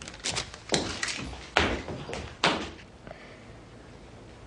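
A handful of sharp knocks and clicks, about six over the first two and a half seconds at uneven spacing, then only a quiet room hush.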